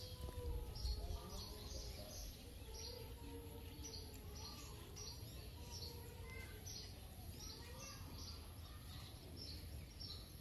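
Faint outdoor ambience: a bird chirping over and over, short high chirps about twice a second, over a low rumble.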